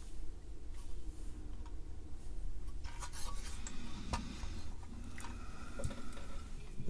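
Printed circuit board being handled and turned over on a workbench: light rubbing and scraping against paper and the bench, with a few small clicks, the scraping heavier from about halfway through.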